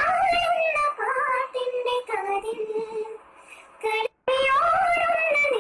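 Two women singing a song together in high voices, holding long notes, with a very brief dropout to silence just after four seconds in.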